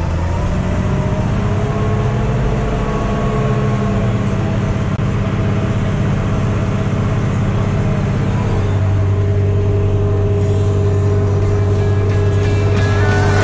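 IHC 1255XL tractor's six-cylinder diesel engine working under load pulling a cultivator, running at a steady pitch after rising slightly in the first couple of seconds.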